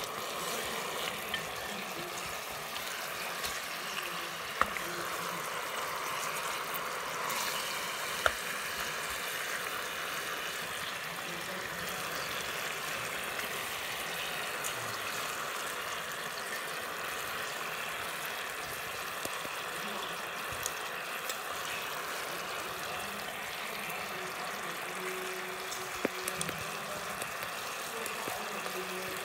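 Char siu pork sizzling in bubbling sauce in a rice cooker's non-stick inner pot, a steady hiss, with a few sharp clicks of wooden chopsticks against the pot.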